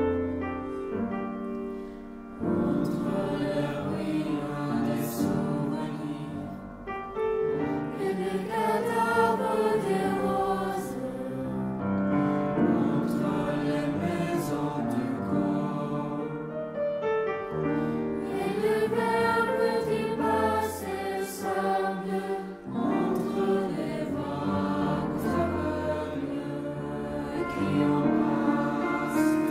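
Mixed-voice choir singing a slow choral piece in sustained phrases, accompanied by piano.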